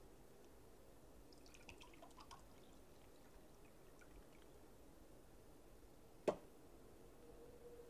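Liquid poured from a glass bottle into a drinking glass, with small clinks and trickling about a second or two in. Then a single sharp knock, the loudest sound, about six seconds in, as the bottle is set down on the table.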